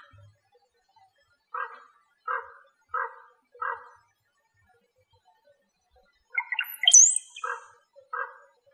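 Dawn desert ambience with an animal giving short, harsh calls: four about 0.7 s apart, then a tighter cluster about six seconds in, and more near the end. About seven seconds in, a bird gives a high chirp that sweeps down and back up.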